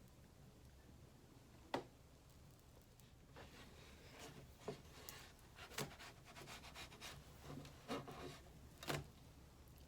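Near silence with a few faint, scattered clicks and light scraping of kitchen handling noise.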